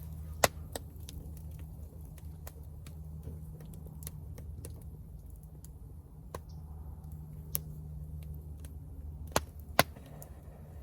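Freshly lit wood campfire crackling, with irregular sharp pops, the loudest about half a second in and twice near the end, over a steady low hum.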